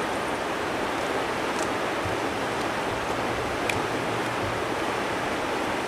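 Steady rushing of flowing river water, an even hiss without rises or gusts.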